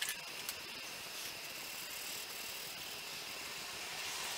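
Steady background hiss with a couple of light clicks near the start as a pencil is picked up. Near the end, a coloured pencil begins scribbling on paper.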